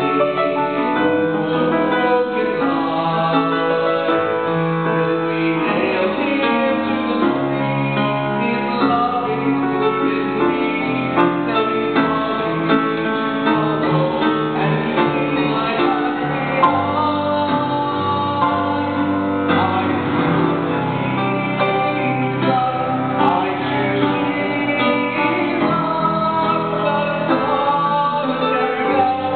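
A man singing a sacred solo song with piano accompaniment.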